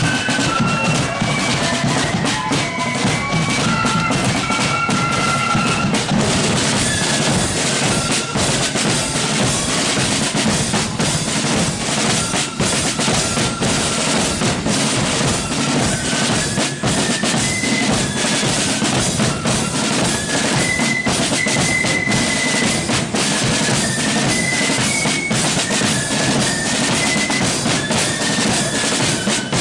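Marching flute band playing: side drums and bass drum beat a steady march, with flutes carrying the tune over them for the first few seconds and again more faintly in the second half.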